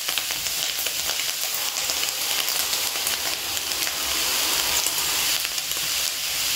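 Stir-fry of tempeh, lamtoro (petai cina) seeds and green chillies sizzling steadily in a hot wok.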